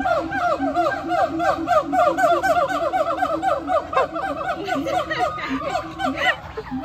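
Gibbon calling: a fast run of rising-and-falling hooting notes, about six a second, with a lower pulsing voice underneath. The calls thin out near the end.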